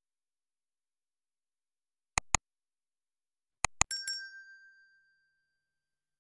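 Subscribe-button animation sound effects: a quick double mouse click, another double click about a second and a half later, then a bright notification-bell ding that rings on and fades away over about a second.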